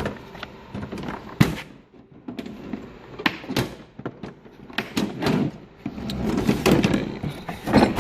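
Steel drawers of a Cornwell 57-inch professional series toolbox sliding shut and open, with a string of sharp metal knocks and clicks and, in the second half, a longer rattle of the drawer and its contents.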